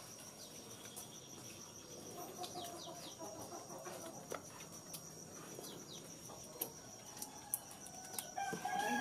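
Quiet village ambience: an insect trills in a steady, high, fast-pulsing tone while chickens cluck faintly. A few sharp clicks fall in the second half, and the clucking grows louder near the end.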